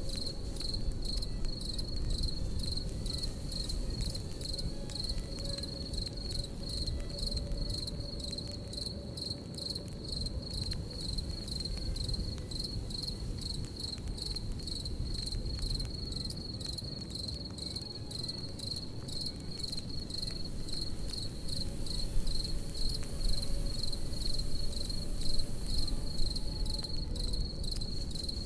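Crickets chirping in a steady, rapid pulsing rhythm, over the low, even rushing noise of a campfire with faint crackles.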